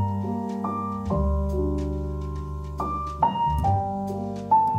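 Piano-led background music: chords struck every second or two and left to ring.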